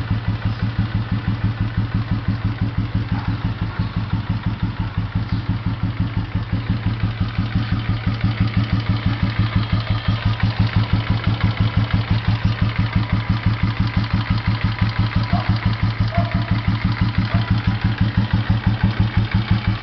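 2006 Royal Enfield Electra 5S's cast-iron single-cylinder engine idling with a steady, even thump.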